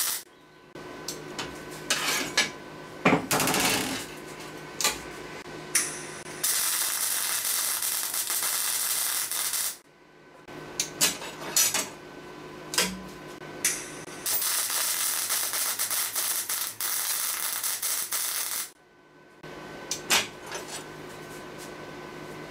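MIG welder crackling in two steady runs of about three and four seconds, each cutting off sharply, with clanks of steel flat bar being handled and set down on the steel table before, between and after them.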